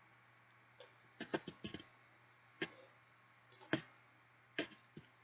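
Computer mouse clicking: about a dozen faint, sharp clicks in irregular clusters.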